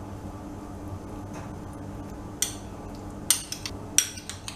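A utensil clinking against a ceramic bowl as chicken pieces are stirred in barbecue sauce: a few sharp clinks in the second half, over a steady low hum.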